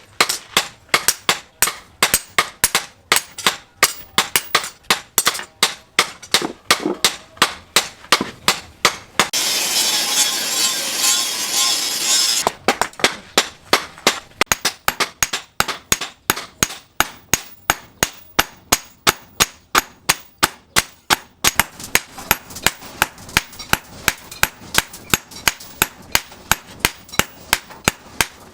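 Blacksmith's hammer striking steel on an anvil in rapid, even blows, about three a second, as the knife blade is forged. About nine seconds in, the blows give way to about three seconds of steady hiss, then resume; in the last few seconds they are quieter.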